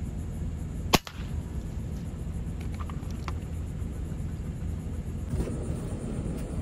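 A single sharp crack from a PCP air rifle being fired about a second in, over a steady low rumble.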